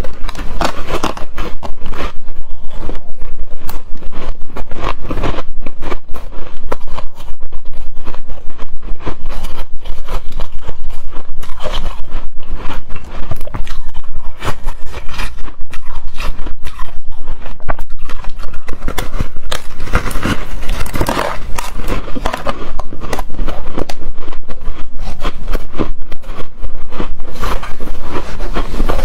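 Hard, frosty shaved ice being bitten and chewed close to the microphone: a dense, continuous run of loud crunching and squeaking crackles, with scraping mixed in.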